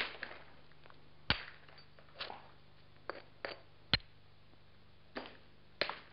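Soft limestone hammerstone striking the edge of an obsidian biface, knocking off thinning flakes: four sharp, ringing clicks a second or two apart, with lighter taps between them. The ring of the last strike changes, which the knapper takes as a warning that the thinned biface is now at risk of breaking.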